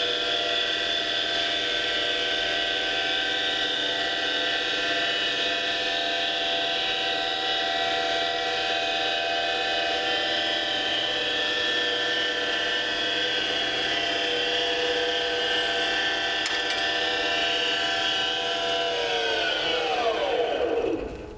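7x16 Micro-Lux mini lathe running a turning cycle on a small wooden bowling pin: a steady motor whine made of several tones. About nineteen seconds in, the whine falls in pitch as the lathe spins down.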